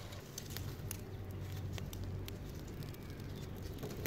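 Open wood fire of dry sticks and twigs crackling under a cooking pot, with scattered small snaps and clicks over a low steady rumble.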